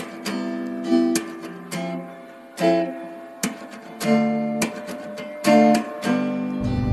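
Background music of acoustic guitar strumming chords. A low rumble comes in near the end.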